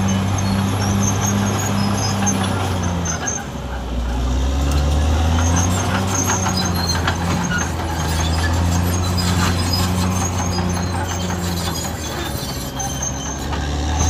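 Caterpillar D6R XL bulldozer's diesel engine running under work, its pitch dipping about three seconds in, climbing back, and dipping again near the end, with scattered metallic clanks through the middle.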